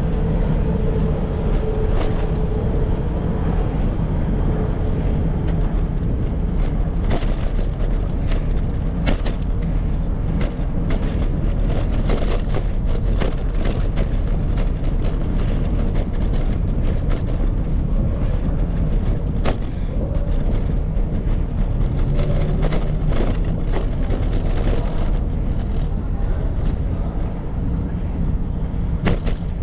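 Wind buffeting the microphone and road rumble from a moving bicycle, a steady low roar with scattered sharp clicks and rattles.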